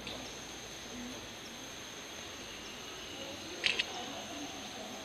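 Steady high-pitched insect drone over a hiss of forest background, with two short sharp clicks close together about three and a half seconds in.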